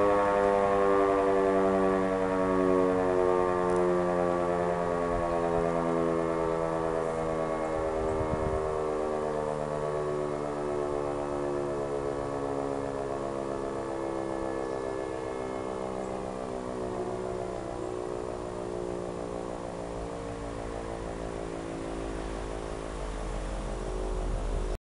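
E57 electro-mechanical civil-defense siren winding down, its howl slowly falling in pitch and fading as the rotor coasts after the test signal.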